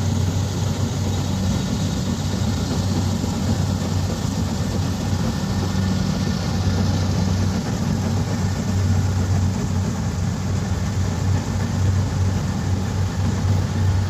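Kubota DC-70 Plus combine harvester's diesel engine running steadily while harvesting rice, a constant low hum with mechanical clatter over it.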